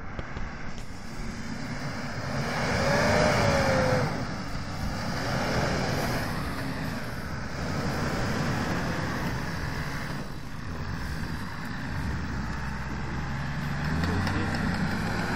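Toyota Land Cruiser 80's engine working under load while driven off-road, revving up and easing off in surges. It is loudest about three seconds in and climbs again near the end.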